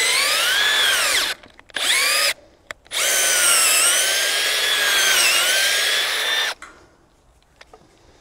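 Milwaukee M12 12-volt cordless drill running in three bursts, the last about three and a half seconds long, its motor whine dipping and rising in pitch as it works under load. It is running on a nearly flat battery.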